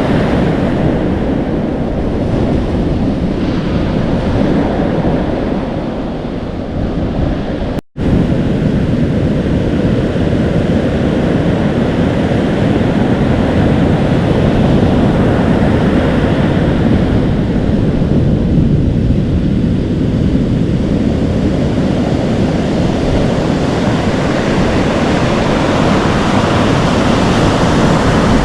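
Atlantic Ocean waves breaking and washing in continuously, with wind buffeting the microphone. The sound drops out for a split second about eight seconds in.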